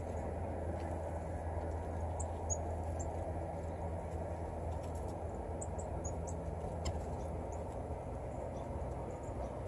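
Faint, very short high-pitched calls of chickadees, scattered irregularly, over a steady low background rumble with a hum in it.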